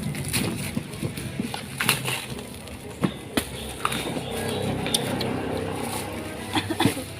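Handling noise: scattered sharp clicks and knocks over a steady low background rumble.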